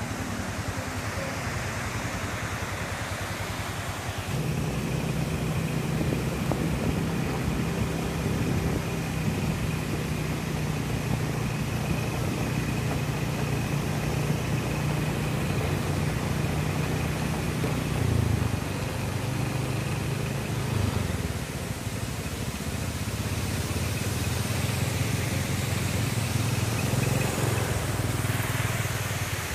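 Steady rush of waterfall noise, joined about four seconds in by a motor vehicle engine running at a steady pitch, which stops shortly before the end.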